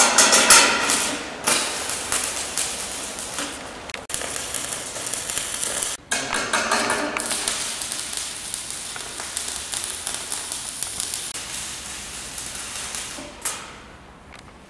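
Electric arc welding tacking a stainless steel pillar to its steel base plate: a steady crackling hiss that breaks off briefly about four seconds in and again about six seconds in, and stops shortly before the end.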